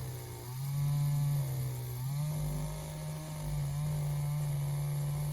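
Chainsaw running at high revs while cutting live oak. The engine pitch dips briefly under load about half a second in and again about two seconds in, then recovers.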